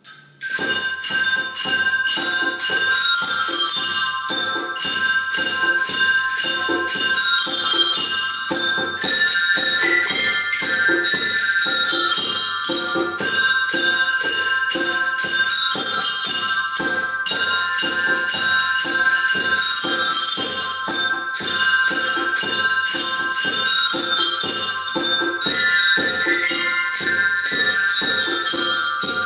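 Glockenspiels played together in a steady rhythm: quick struck metal bars with bright notes ringing over one another, starting abruptly.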